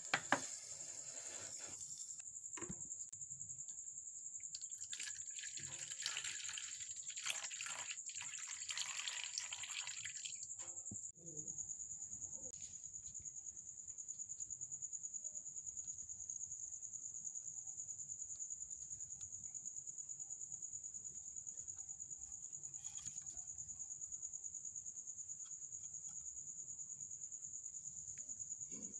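Steady high-pitched insect trill running throughout. For the first ten seconds or so a crackling hiss sounds over it as a heated knife melts into a plastic bottle, then stops abruptly.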